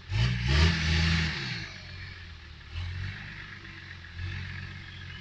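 Off-road 4x4's engine revving up sharply twice in the first second and a half, then dropping back to a lower, steady run with small surges of throttle.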